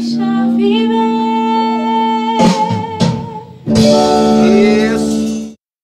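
A woman singing long held notes with vibrato over an instrumental accompaniment, in two phrases with a short break between them; the music cuts off abruptly near the end.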